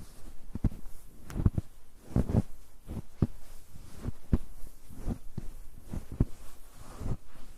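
Footsteps crunching in snow on a snow-covered road, a steady walking pace of about two steps a second.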